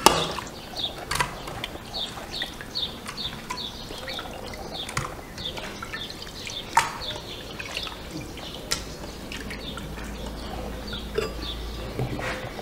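Water splashing and dripping as raw meat is rinsed and squeezed by hand in a bowl of water, with a few sharp splashes. A small bird chirps over it the whole time, about two to three short falling chirps a second.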